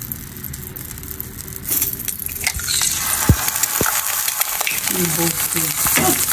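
An egg cracked open with a knife over a frying pan, then frying in hot oil: the oil sizzles, much louder from about three seconds in. A couple of sharp cracks come just after the sizzle swells.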